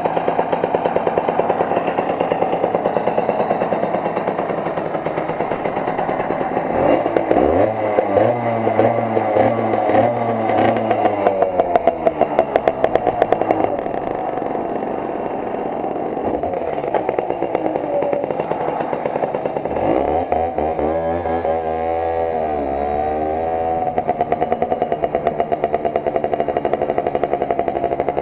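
Simson moped's two-stroke single-cylinder engine idling with a fast, even putter, revved up and down about seven seconds in and again around twenty seconds in, then pulling away near the end.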